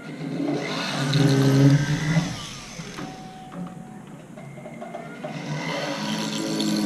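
Foredom flex-shaft rotary motor spinning up to drill holes in metal, running in two spells: a loud one about half a second to two seconds in, and another building near the end.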